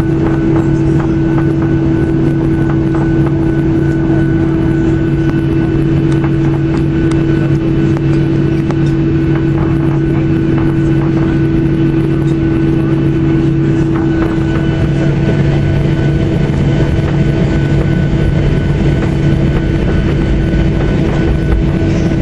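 Cabin noise inside a Boeing 737-800 taxiing on the ground: a steady hum from the CFM56 engines at idle and the cabin air, with two constant low tones and a fainter high whine, over a rumble from the wheels rolling on the taxiway.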